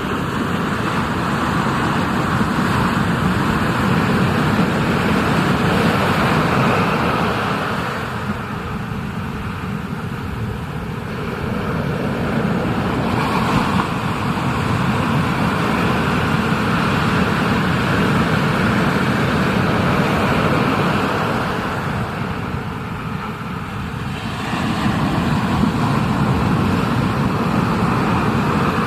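Rushing ocean water and wind buffeting a surfer's POV camera microphone, a loud steady roar that eases off twice and swells back.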